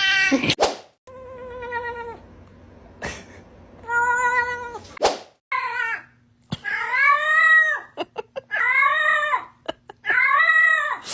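Domestic cats meowing and yowling: a string of about six separate drawn-out meows, each rising and then falling in pitch, the longest lasting over a second, with abrupt cuts between some of them.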